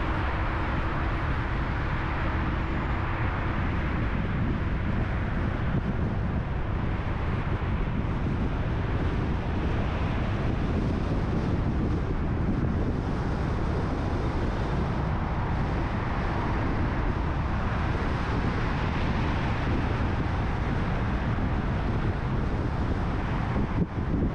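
Car driving along a city road: steady low tyre and road rumble, with wind noise on the microphone.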